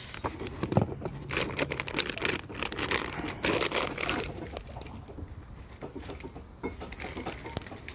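Packaging around a new brake rotor crinkling and rustling as it is handled and unwrapped. Dense at first, thinning out in the second half.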